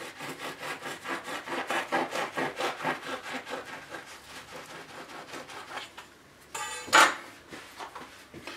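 Serrated bread knife sawing through a crusty sesame-seeded bagel on a wooden cutting board, in rapid back-and-forth strokes, several a second. It ends with a sharp knock about seven seconds in.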